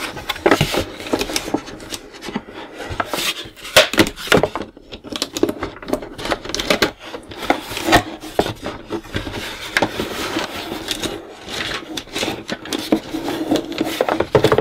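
Cardboard toy box being handled and its flaps pulled open: cardboard rubbing and scraping with irregular taps and knocks.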